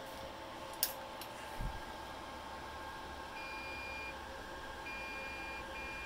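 Faint steady hum of a Dell T7500 workstation, with a sharp click about a second in and a low thump shortly after, after which the low hum grows a little. In the second half a high electronic beep sounds three times, each under a second long.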